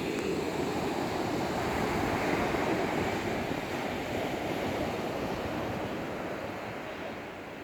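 Rough sea surf: a wash of breaking waves that swells about two seconds in and slowly fades, with wind on the microphone.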